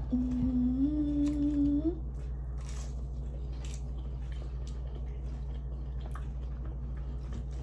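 A person hums one short note for about two seconds, stepping up in pitch near its end, then soft chewing over a steady low hum.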